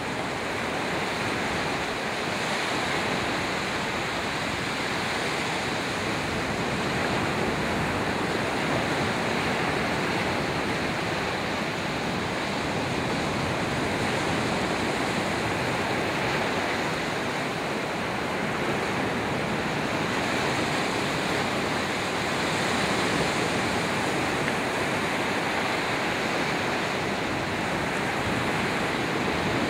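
Ocean surf: small waves breaking and washing in as a steady rush, swelling gently in loudness as each wave breaks.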